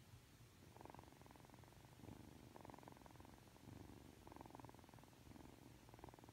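A drowsy young Ragdoll kitten purring close up. The purr comes in four swells of about a second each, one every second and a half to two seconds.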